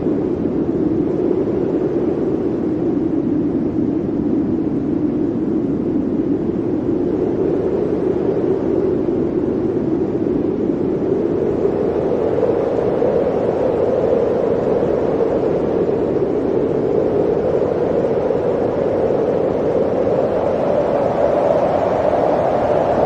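Blizzard wind howling steadily, its hollow pitch slowly sinking and then rising again toward the end.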